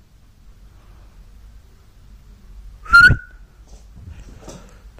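A golden retriever puppy's single short, high-pitched yip about three seconds in.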